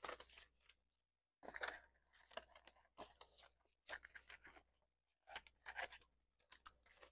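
Paper banknotes rustling and crinkling as bills are counted and slid into a clear binder pocket, in several short bursts with brief pauses between.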